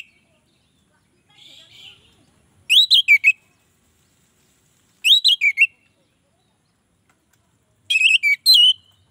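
Orange-headed thrush singing: three short whistled phrases of quick up-and-down glides, about two and a half seconds apart, the last one longest.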